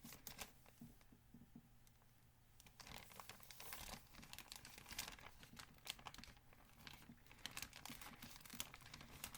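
Faint rustling, crinkling and tearing of parcel packaging being worked open by hand, in scattered small crackles that pick up about three seconds in.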